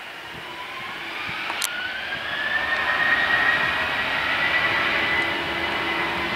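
Boeing 737-800's CFM56-7B turbofan engines spooling up: a whine that rises in pitch over the first few seconds and then holds steady, while the jet noise grows louder as thrust is set for the takeoff roll. A single short click sounds about a second and a half in.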